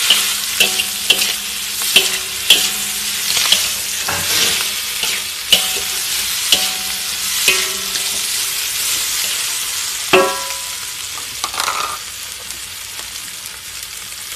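Metal spatula scraping and knocking against a wok as egg, sausage and chicken stir-fry in tomato sauce, with a steady sizzle underneath. The sharp strokes come about every second for the first eight seconds, then thin out.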